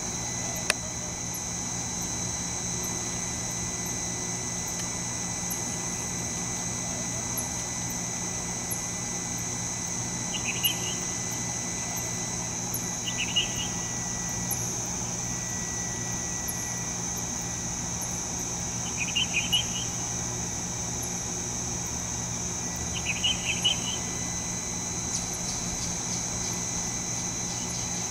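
Insects trilling in a steady high-pitched chorus over a low steady hum. Short chirps break in four times, and there is a single sharp click about a second in.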